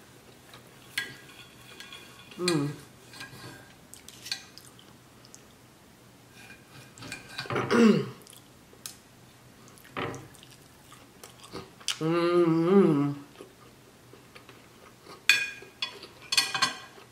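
Steak knife and fork clinking and scraping on a plate while a steak is cut, with a few sharp clicks, the last two near the end. Between them come chewing and a few short hums, the longest about twelve seconds in.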